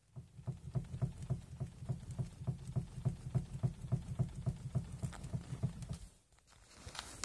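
Ford Focus 3 steering rack knocking: a rapid, uneven run of dull knocks, several a second, that breaks off briefly about six seconds in and starts again near the end. The knock comes from play in the worn steering rack.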